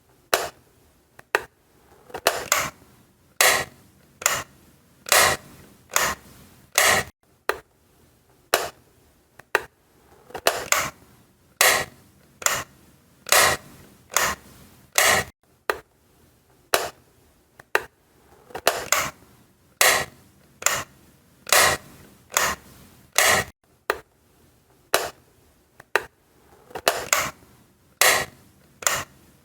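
Wall light switch being flicked on and off over and over, each flip a sharp click, about one a second.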